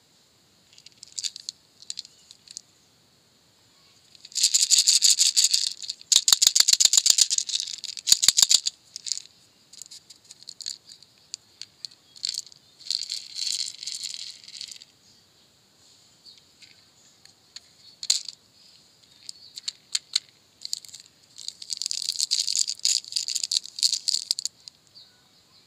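Candy-coated chocolate beans rattling inside a small plastic tub as it is shaken, in several bursts of rapid clicking, loudest from about four to nine seconds in. Smaller bursts of rattling and handling of plastic come later.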